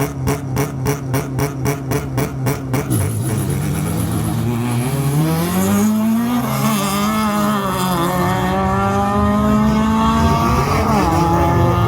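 A race car at wide-open throttle. Sharp, evenly spaced cracks come about four or five a second for the first three seconds. Then the engine note climbs as the car accelerates, drops at a gear change and climbs again.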